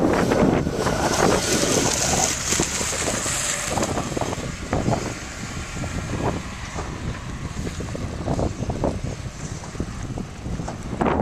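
Wind buffeting the microphone over the sound of sports car engines running, louder in the first few seconds and quieter after that.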